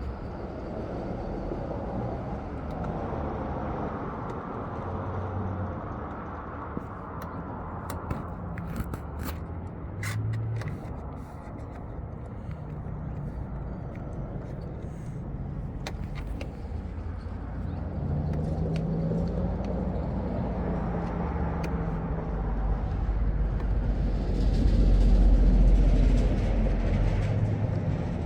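Motor-vehicle noise running throughout, swelling to its loudest a few seconds before the end, with a few light clicks and taps about a third of the way in and again around the middle.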